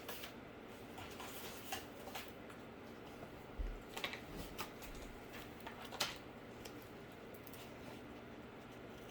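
Scattered light taps and rustles of cardboard scraps being handled and sorted, over a steady faint room hum.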